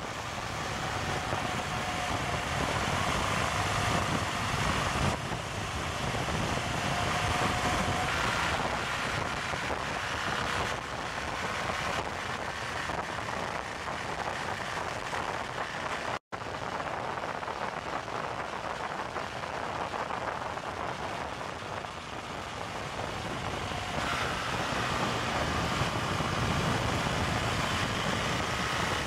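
Motorcycle ridden at road speed, heard from on board: wind rushing over the microphone with the engine note underneath, its pitch rising and falling a little. The sound cuts out for an instant about halfway through.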